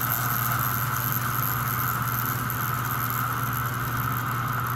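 Motor and gear train of a refitted American Flyer steam locomotive chassis running steadily on a roller test stand. The drive has a steady buzz that the builder is unsure comes from a cam or the idler.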